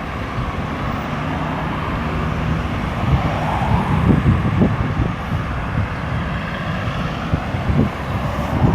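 Road traffic moving round a busy roundabout: a steady rumble of car and bus engines and tyre noise, swelling now and then as heavier vehicles pass.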